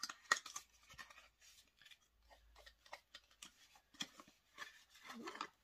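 Small cosmetics packaging being handled on a desk: faint rustling, scraping and light clicks at irregular moments.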